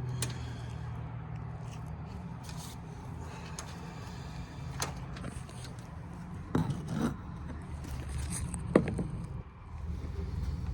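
Clicks, knocks and light scraping of furnace parts and hoses being handled and pulled off during disassembly, over a steady low hum. One sharp knock near the end is the loudest.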